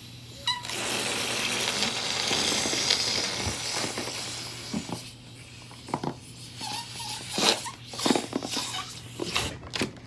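Air hissing out of a blown-up rubber balloon as it is pressed flat, for about four seconds. After that, a few short clicks and squeaks of rubber as the emptied balloon is handled and stretched.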